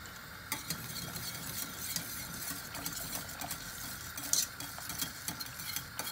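Wire whisk stirring salted tomato soup in a stainless steel pot, its wires clicking and scraping against the pot in a steady patter, with a cluster of louder clinks about four seconds in.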